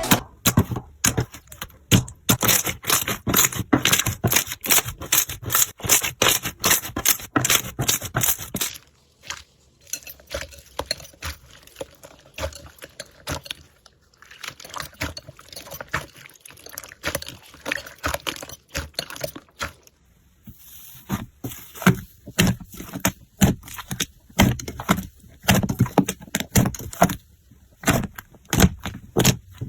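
Slime being squished and pressed by hand, making rapid crackling and popping clicks. The crackling is louder for the first nine seconds or so, quieter and sparser until about twenty seconds in, then louder again.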